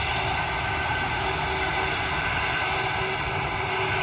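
Jet airliner engines running steadily: an even whine with steady tones over a low rumble.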